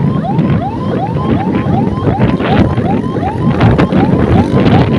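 An electronic siren in a fast yelp, each rising whoop repeating about four times a second, over the low rumble of a moving motor scooter.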